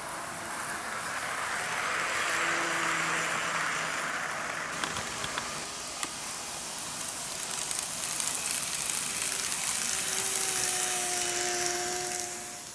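N-gauge model electric trains running on the layout's track: a steady hiss of wheels on rail with a faint motor whine that comes and goes, and a few light clicks partway through as wheels pass over rail joints and turnouts.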